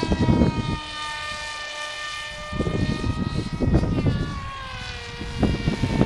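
Dynam EZ Hawk RC plane's brushless electric motor and propeller whining overhead, a steady high whine that sags in pitch about four seconds in. Gusts of wind rumble on the microphone over it.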